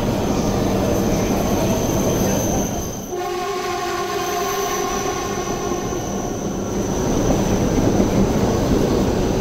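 E5 series Shinkansen train pulling into the platform and rolling slowly past, with a steady rushing noise. About three seconds in, a steady pitched whine of several tones sounds over it for about three seconds.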